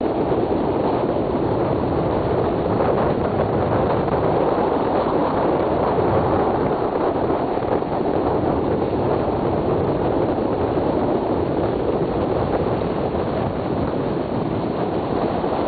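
Steady wind buffeting the microphone aboard a moving pontoon boat, over the even drone of the boat under way.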